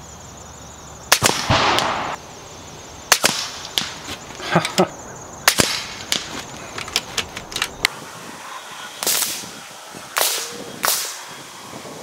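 A .25 calibre Kalibrgun Cricket PCP air rifle firing 36-grain slugs at a 100-yard target: sharp reports every second or two, some with a short ringing tail.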